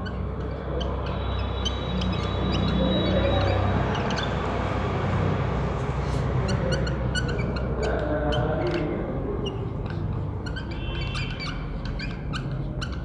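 Felt-tip marker squeaking and tapping on a whiteboard as words are written out in short strokes, with a few longer high squeaks. A steady low hum runs underneath.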